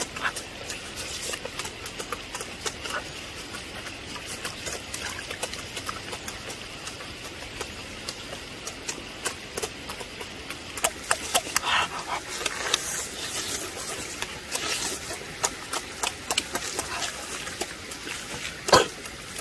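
Two people eating braised pork leg with their hands: wet chewing, lip-smacking and biting into the meat, in many short irregular smacks, with a stronger smack near the end.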